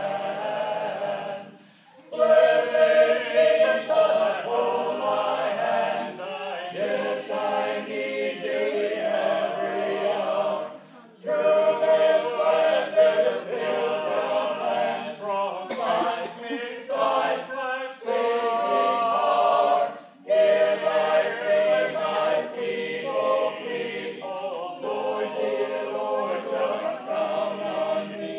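A double quartet of voices singing a cappella in harmony, in several phrases with brief pauses between them.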